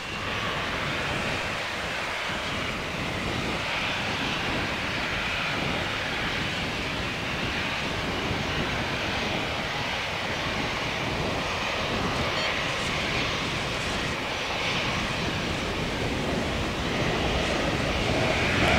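Airbus A320-214's CFM56-5B turbofan engines running at taxi power: a steady jet hiss and whine, growing a little louder near the end.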